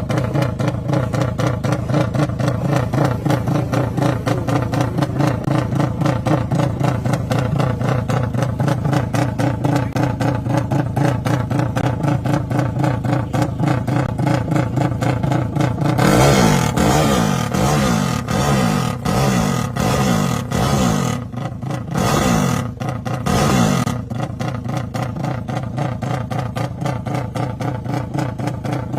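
Motorcycle engine with an open, unmuffled exhaust, idling with a fast even pulse. About halfway through it is revved in a series of short throttle blips for several seconds, then it settles back to idle.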